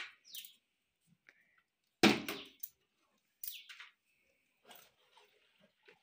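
A few sudden knocks and short scrapes, the loudest about two seconds in: a plastic bottle and plastic plates handled on a hard floor.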